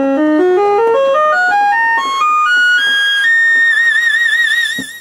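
Korg Delta DL-50 analog synthesizer voice playing a fast climbing run of notes, then holding a high note that gains vibrato and fades away near the end. The synth section is sounding cleanly again after its old capacitors were replaced.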